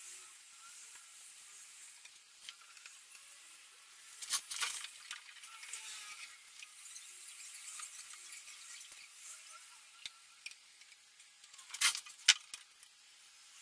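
Masking tape being peeled off a painted wooden sideboard: faint rustling and tearing, with a few sharper rips about four seconds in and two louder ones close together near the end.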